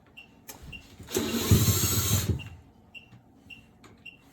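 Cordless drill/driver with a Phillips bit running in one burst of about a second and a half, starting about half a second in, driving out a screw on the stairlift's carriage. Faint short high chirps repeat about twice a second.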